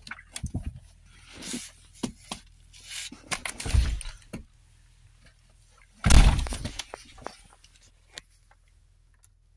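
Clicks, scraping and rustling as a snow-covered car door is unlatched and opened and someone climbs in, then a heavy thump about six seconds in as the door is shut.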